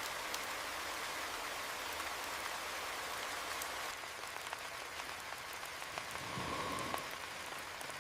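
Heavy rain pattering steadily, with many small separate drop ticks, and a brief dull low sound near the end.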